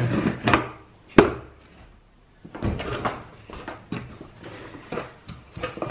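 Cardboard box being ripped open by hand: tearing and rustling, one sharp knock about a second in, then scraping and clicks as the flaps are pulled back.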